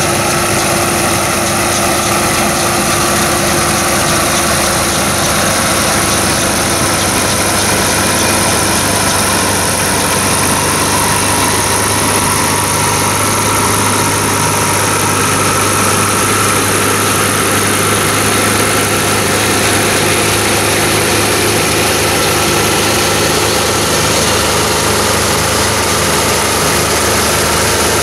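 Old Gleaner self-propelled combine running steadily as it harvests oats: its engine and the threshing machinery turning at a constant pace.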